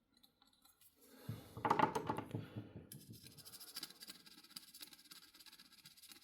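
Scrubbing and scraping gunk off a metal electric-kettle part. A quick run of rubbing strokes starts about a second in, then gives way to a fainter, steady hiss of rubbing.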